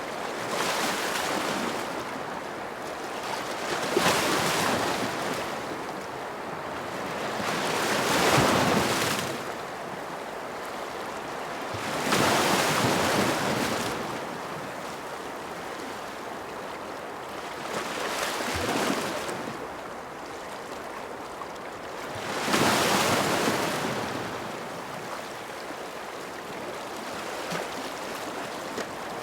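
Ocean waves breaking and washing ashore, a steady rush that swells into a louder surge every four seconds or so, six times in all.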